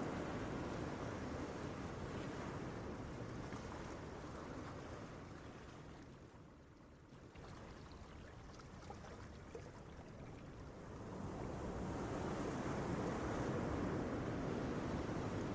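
Gentle ocean waves breaking and washing onto a beach. The surf fades to a lull about halfway through, then swells again as the next wave comes in.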